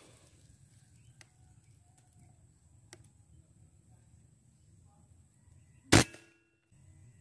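A single air-rifle shot about six seconds in: one sharp crack with a brief ring-off, after a quiet aim broken only by a few faint clicks.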